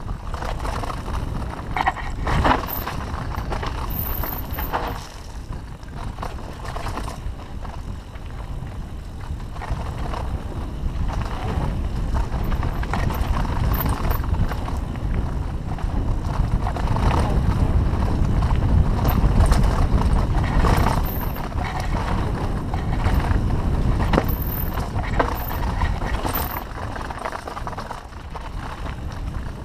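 Mountain bike riding fast down a rough dirt trail: tyres rumbling over the ground, with scattered clicks and rattles from the bike and a heavy low rumble that swells louder about halfway through.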